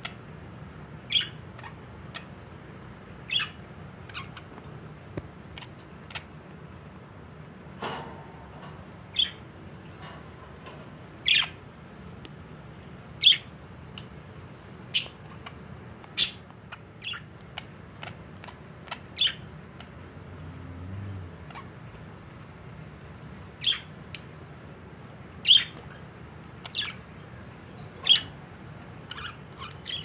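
Pet budgerigars giving short, sharp chirps every second or two.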